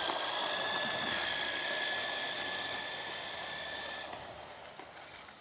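Electric drive motor and gears of a 1:12 Cheetah Kyamrc Climbing Strong Power Truck Max RC truck whining as it drives along the street, a steady high whine that fades out about four seconds in.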